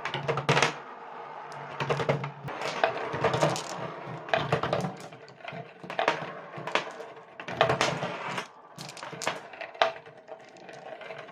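Glass marbles rolling along a cardboard marble run, with a low rolling rumble and irregular sharp clicks and clacks as they drop and knock against the track and each other.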